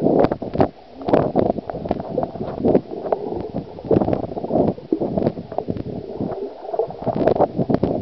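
Muffled underwater gurgling and bubbling heard by a camera held below the surface of a swimming pool, with many irregular clicks and knocks.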